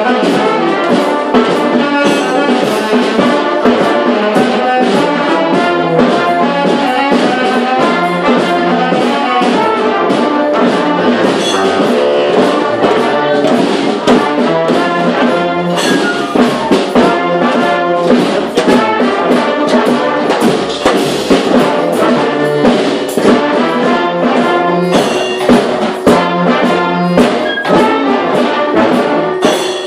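Street brass band rehearsing a tune together: trombones and trumpets playing over regular drum hits. The band stops at the very end.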